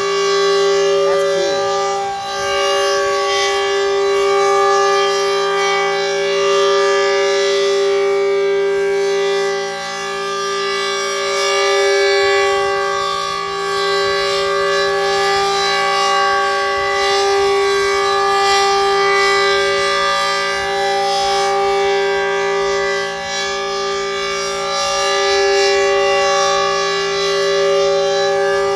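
Super Sirex outdoor warning siren sounding a loud, steady tone that does not rise or fall in pitch. Its loudness swells and fades every few seconds.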